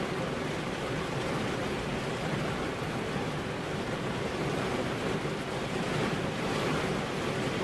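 Steady rain falling, an even dense hiss that swells slightly near the end.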